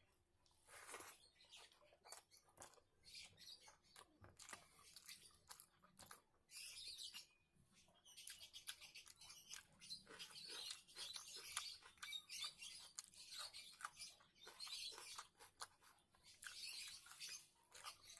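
Quiet chewing and lip-smacking of someone eating a rice and curry meal: a steady run of soft, wet clicks and smacks.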